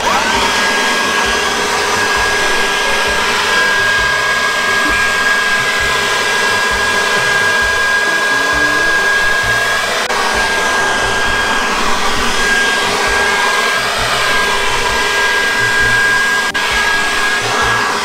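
Cordless battery-powered electric blower with a long nozzle, running steadily to blow water droplets off a wet car bonnet: an even rush of air under a constant high motor whine. The whine climbs to speed right at the start.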